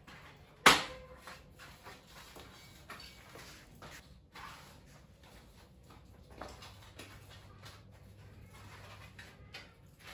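Handling noise of a road tyre being worked onto a carbon clincher rim: a sharp click about a second in, then soft rubbing, rustling and small knocks of hands and rubber on the wheel.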